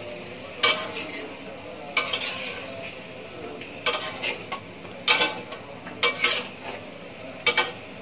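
Metal spatula scraping and clanking against a wok as salted squid and tofu are stirred, in about six irregular strokes, over a steady low sizzle of the simmering sauce.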